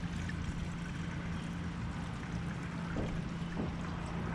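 Gasoline poured from a can into a lawnmower's fuel tank: a steady pouring trickle.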